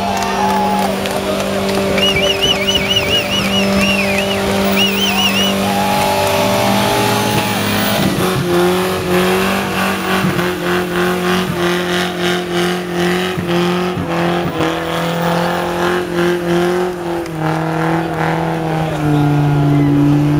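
A car doing a burnout: its engine is held at high revs, settling at a lower pitch about seventeen seconds in, while the spinning rear tyres squeal, with a warbling squeal about two seconds in.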